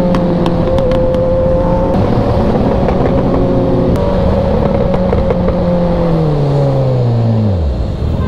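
Superbike engine held at steady high revs, then the revs fall away over about two seconds near the end as the bike slows. A few sharp pops sound over it.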